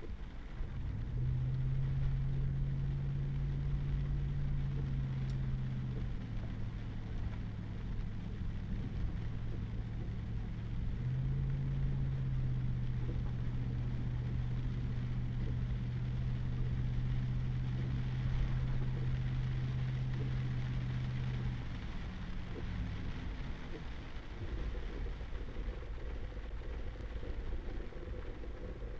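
Pickup truck engine pulling steadily, heard from inside the cab over the low rumble of tyres on a wet, muddy dirt road. The engine note eases about six seconds in, picks up again about five seconds later, and drops back near the end.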